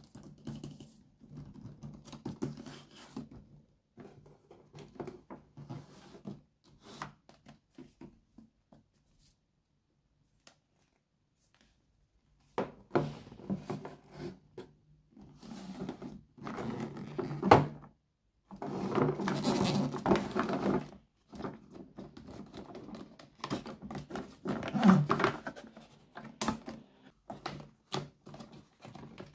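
Hands handling a boxed plastic toy doctor suitcase set and a baby doll: irregular taps, clicks, knocks and rustling of the packaging and plastic case. There is a quiet stretch about ten seconds in, and the busiest handling comes in the second half.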